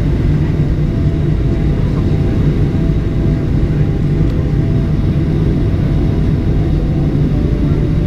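Steady low cabin drone inside a Boeing 737-800, from its CFM56-7B turbofan engines running, heard through the fuselage.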